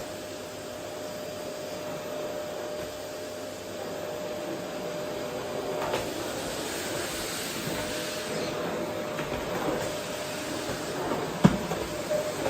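Vacuum cleaner running steadily, a constant rushing noise with a faint steady tone in it, as it is worked over a wooden floor. A small knock about halfway through and a sharp knock near the end, the loudest sound here, as the nozzle bumps something.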